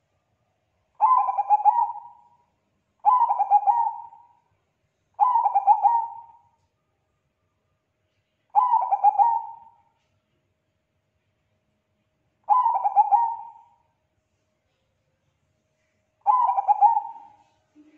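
Zebra dove of the Bangkok perkutut type cooing: six calls, each a rapid staccato run of coos lasting about a second, repeated every few seconds.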